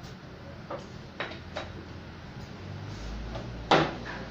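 A few light clunks, then one loud sharp knock near the end, from handling the heavy stone mortar (batu lesung) used as a weight on the rice pot's aluminium lid. A low steady hum starts about three seconds in.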